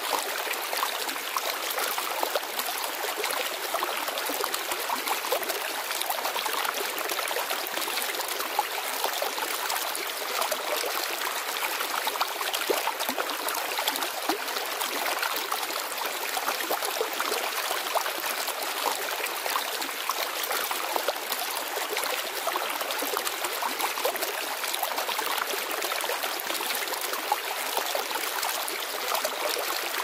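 Shallow forest stream flowing, a steady, unbroken babble of running water with fine, constant splashing.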